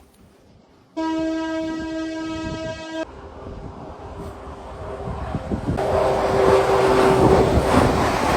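Train horn sounding one steady blast of about two seconds, starting and stopping abruptly. Then a passing train's rumble builds and grows louder near the end.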